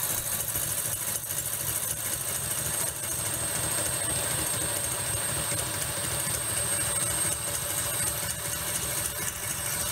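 KitchenAid stand mixer running at speed, its wire whisk beating egg whites while hot sugar syrup is poured in for Italian meringue. A steady motor hum with a thin high whine over it.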